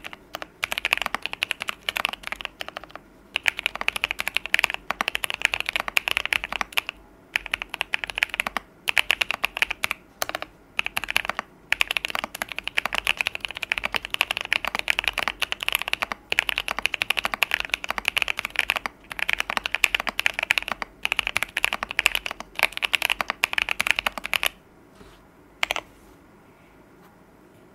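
Fast typing on a custom Alice-layout mechanical keyboard with a clear polycarbonate case and brass plate, foam- and tape-modded, fitted with Boba U4T tactile switches lubed with Krytox 205g0. The typing comes in bursts with brief pauses and stops near the end.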